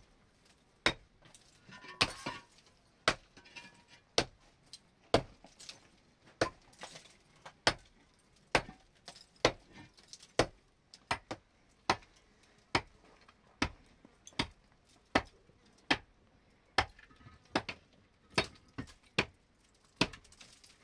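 Sharp clinking taps about once a second, now and then two in quick succession: a mason's tool striking brick.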